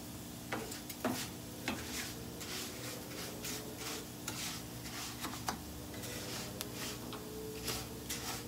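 Rice toasting dry and brown in a frying pan, stirred with a plastic spoon: the grains rustle and scrape against the pan in repeated short strokes, several a second.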